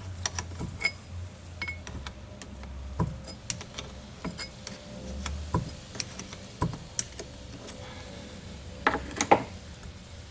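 Scattered clicks and clinks of metal parts and hand tools being handled on a workbench, with two louder knocks about nine seconds in, over a low steady hum.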